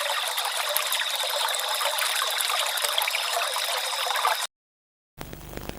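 Thin, crackling static hiss with a steady high-pitched whine running through it, cutting off suddenly about four and a half seconds in. After a short silence, a quieter low hum with static starts near the end.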